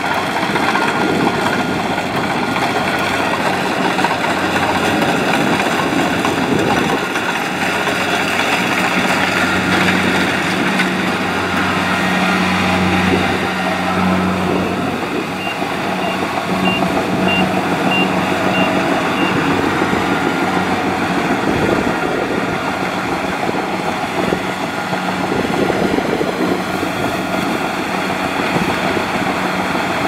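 Kubota DC-70 rice combine harvester running steadily as it harvests: its diesel engine and threshing machinery make a continuous mechanical din, with the low engine hum swelling for several seconds about a third of the way in. A faint, evenly repeated high beep sounds for a few seconds midway.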